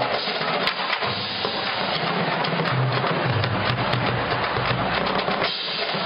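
College marching band playing, led by its drum line's snare and bass drums in a dense, driving beat.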